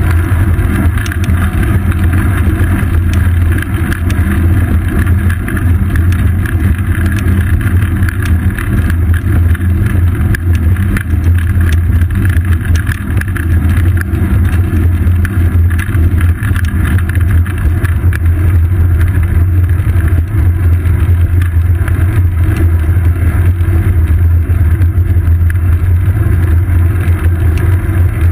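Steady, loud rumble of a road bicycle rolling on asphalt: tyre and road vibration carried up the seat post into a GoPro Hero 2 mounted there, mixed with wind rush on the camera.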